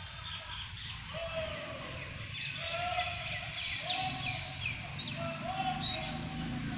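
Birds calling in the background: a short mid-pitched call repeated about once a second, mixed with quick high chirps, over a low steady background rumble.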